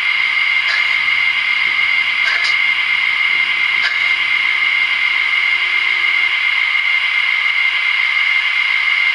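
A steady, even hiss, with a few faint clicks and a faint low hum that stops about two-thirds of the way through.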